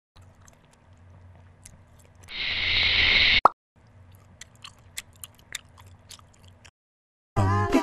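Added animation sound effects. A faint crackle of small clicks gives way to a loud hiss lasting about a second, which ends in a sharp pop. Near the end a character's deep groaning voice starts.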